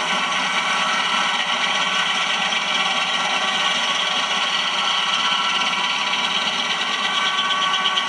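Old circle sawmill running: a loud, steady mechanical din from its engine and machinery, with a rattle in it.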